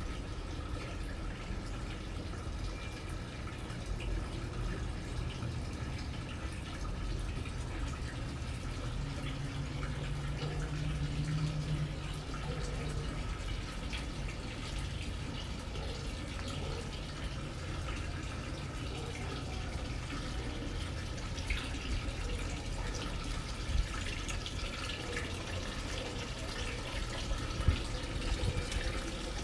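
Steady trickle and splash of water from a garden wall fountain.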